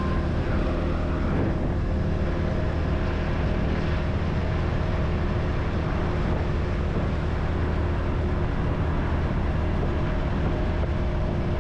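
Motorcycle engine running at a steady speed while riding, with wind and road noise.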